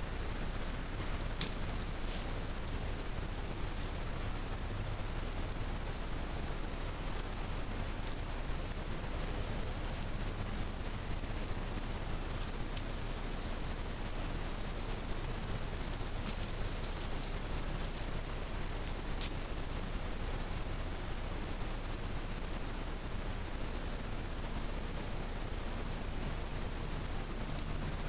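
Steady, unbroken high trill of an insect chorus such as crickets, with faint regular pips about once a second riding above it.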